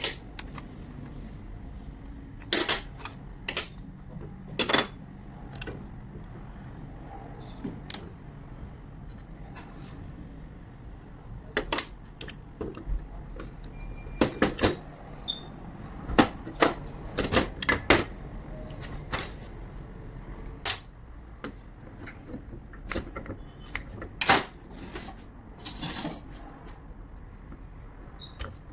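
Irregular metallic clinks and knocks of tools and metal parts being handled on a workbench, dozens of them at uneven intervals, over a steady background hum.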